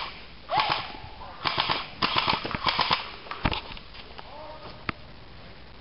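Airsoft guns firing four short full-auto bursts of rapid clicking shots in the first three seconds. A single low thump follows, then one lone shot before it goes quieter.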